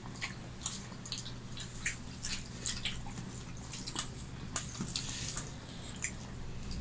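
Eating sounds: scattered, irregular wet clicks and smacks of people chewing and mixing rice and curry with their fingers on steel plates.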